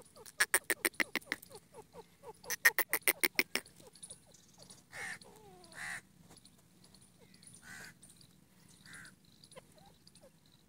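Grey francolin calling: two quick runs of loud, rapidly repeated notes, each about a second long, in the first few seconds. Then a few softer, separate calls.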